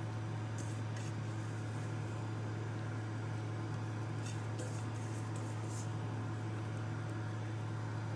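Steady low machine hum in the room, with a few faint, short, soft rustles from gloved hands piling dressed cabbage kimchi into a bowl: one or two about a second in, more around four to six seconds in.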